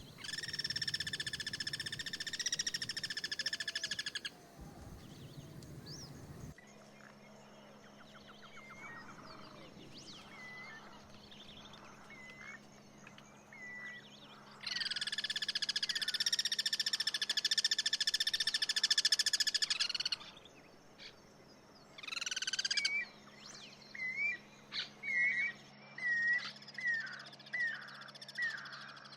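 Guira cuckoos calling: two loud, long, harsh rattling calls of several seconds each, the loud territorial call of the species, then near the end a quick series of short whistled notes.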